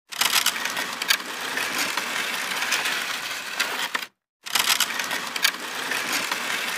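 Sound effect of an animated end screen: a dense noise with scattered sharp clicks for about four seconds, cutting off abruptly, then starting over the same way.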